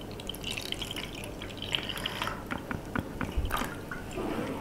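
Water being poured into the small tank of a 1-litre humidifier: faint, irregular trickling and dripping with small clicks.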